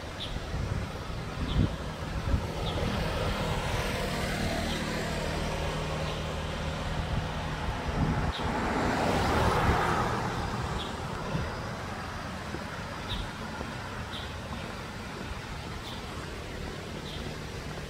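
A road vehicle approaching and passing, swelling to its loudest about nine to ten seconds in and then fading, over a steady low hum. Faint short high chirps come every second or two.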